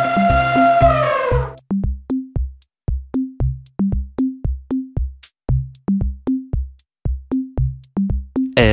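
Background electronic music with a steady drum-machine beat, about two hits a second. It opens with a held synth-like note that slides down and stops about a second and a half in.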